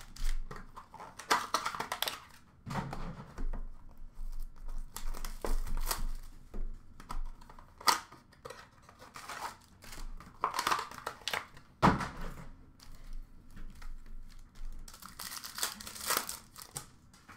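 2021 Bowman Chrome baseball card packs being torn open by hand: the foil wrappers tear and crinkle in irregular bursts as the cards are pulled out and handled. A sharp click about twelve seconds in is the loudest moment.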